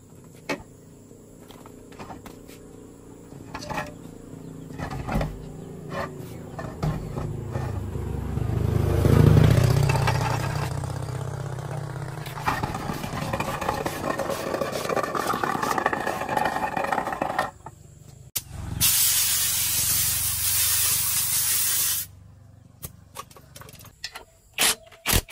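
A vehicle's engine and tyres swell as it passes by and fade again. About nineteen seconds in comes a loud, steady hiss of about three seconds that stops abruptly, with scattered metallic tool clicks around it.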